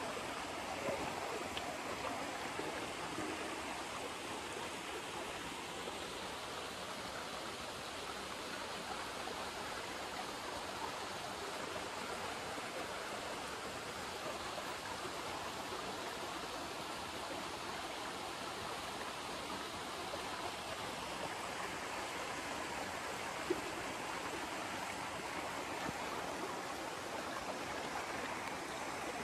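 Running water of a small stream, a steady rushing. There is one brief click about three-quarters of the way through.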